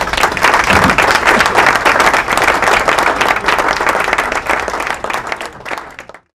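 A group of people clapping, breaking out suddenly as applause for a successful ring toss, then thinning out and cutting off near the end.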